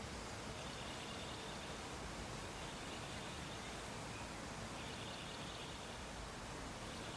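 Steady background hiss, with a faint high-pitched tone that comes and goes in stretches of a second or two.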